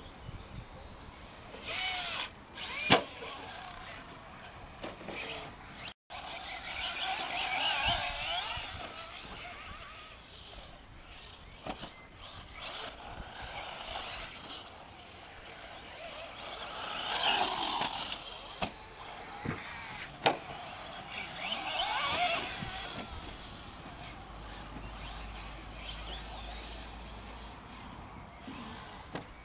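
Traxxas Slash 4x4 RC truck's brushless motor (Novak HV 4.5 on a Mamba Max Pro controller) whining, rising and falling in pitch as the truck accelerates and lets off through several passes. A couple of sharp knocks stand out, about three seconds in and again near twenty seconds.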